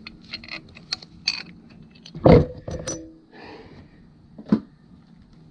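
Metal bolts and hand tools clinking and knocking as they are handled during engine work, with a loud ringing metallic clunk a little over two seconds in and a few smaller knocks after it.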